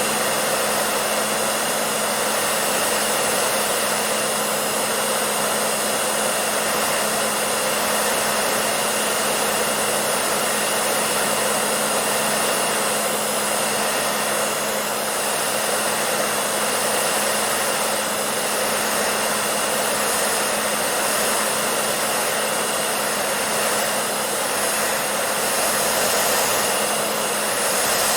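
Hair dryer running steadily: an even rush of blown air with a constant motor hum beneath it.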